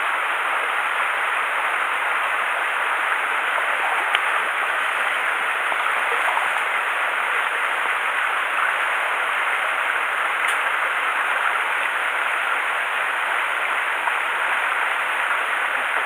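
Mountain stream rushing steadily over rocks and riffles, with a faint click or two.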